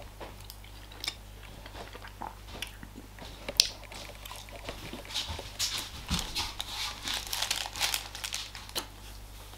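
A man chewing a mouthful of chewy raspberry protein bar close to the microphone: irregular mouth clicks, coming closer together in the second half.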